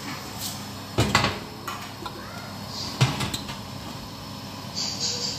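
Glass baking dish and metal oven rack clanking as a tray of skewers is slid into an oven: a few sharp knocks about a second in, and the loudest clatter about three seconds in.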